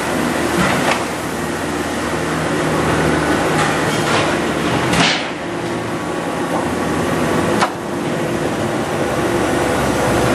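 Factory machinery at a hydraulic sink press running: a loud, steady hum with several steady tones and scattered metal clanks. About halfway through there is a brief hiss that falls in pitch, and a sharp knock follows a couple of seconds later.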